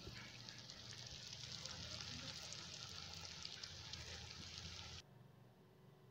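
Potato sticks deep-frying in hot oil in a kadai: a steady hiss with fine crackles that stops abruptly about five seconds in.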